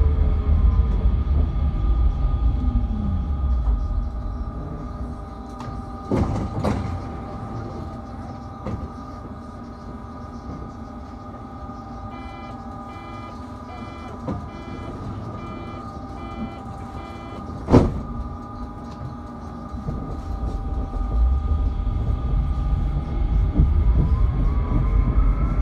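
Tram braking to a stop, its motor whine falling in pitch as the rumble dies away, then standing with a steady electrical hum and a single thump. In the middle comes a run of evenly spaced beeps ending in a sharp clunk as the doors close. Near the end the tram pulls away, its motor whine rising and the running rumble growing.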